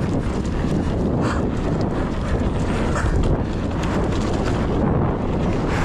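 Wind rushing over the microphone as a mountain bike rattles down a dirt trail at speed, with a few brief sharp clacks from the bike.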